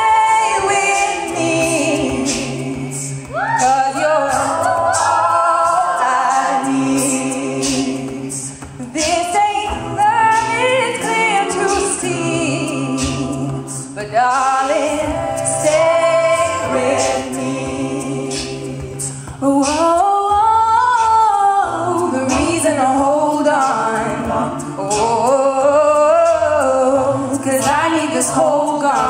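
Mixed-voice a cappella group singing live in close harmony, with a bass voice holding low notes under the chords and mouth percussion clicking out the beat.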